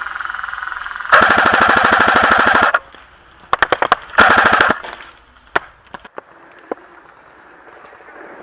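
Airsoft AK-47 replica firing on full auto: a rapid burst of about a second and a half, then two shorter bursts close together, followed by a few faint single cracks.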